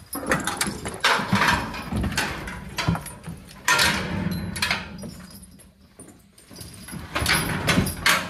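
A draft horse's work harness being handled after coming off the horse: its metal hames and buckles clink and rattle against the leather in several irregular bursts.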